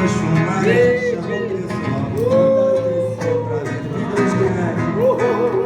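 Acoustic guitar (violão) playing while a singer holds long, wavering notes, with bongo hits keeping the rhythm.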